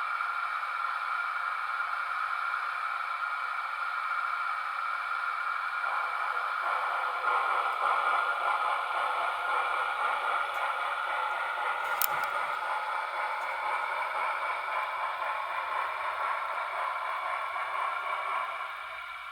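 Steam-locomotive sound from the DCC sound decoder of a model AD60 Beyer-Garratt, played through its small on-board speaker: a steady hiss with almost no bass. It grows fuller and louder about six seconds in and falls away shortly before the end, with a single click about twelve seconds in.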